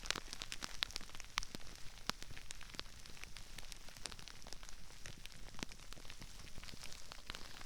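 Crispy rice crackling: a dense, irregular patter of tiny pops and crackles, much like light rain on a surface, with a few louder snaps standing out.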